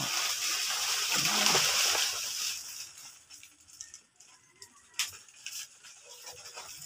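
Dry banana leaves rustling, a steady rustling hiss that fades out after about two and a half seconds, with a short voice sound in the middle. A single sharp click about five seconds in.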